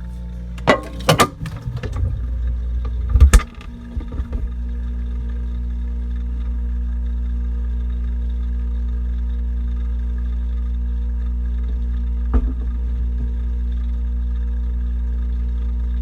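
Mini fridge running with a steady low hum. A few sharp knocks and bumps come in the first four seconds, the loudest about three seconds in, and one more click comes later on.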